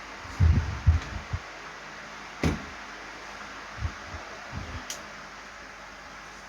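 Parts of a shoe rack being fitted together: a cluster of low thumps about half a second in, a sharp knock near the middle, and a few softer thumps and a click later on, over a faint steady hiss.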